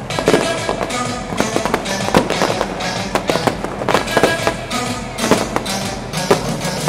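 Fireworks going off, with many sharp bangs and crackles in quick, irregular succession from aerial shells and fountains. Music plays loudly throughout.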